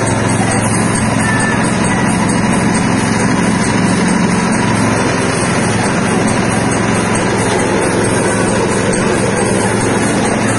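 Soybean dehulling machine running steadily, splitting the beans and separating their skins.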